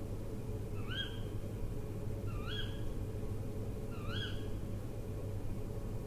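An owl repeating a short call four times, about a second and a half apart; each call rises and then levels off. A steady low rumble runs underneath.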